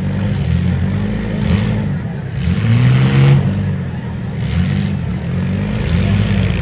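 Demolition derby car engines revving repeatedly, rising and falling in pitch as the cars accelerate and back off, loudest about three seconds in, with short bursts of hiss.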